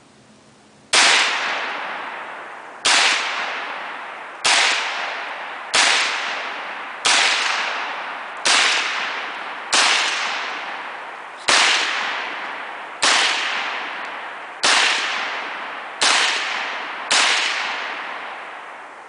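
AK-47 rifle (7.62×39mm) firing twelve single shots at a fast, steady pace, about one every one and a half seconds. Each crack is followed by a long echo that fades over a second or more.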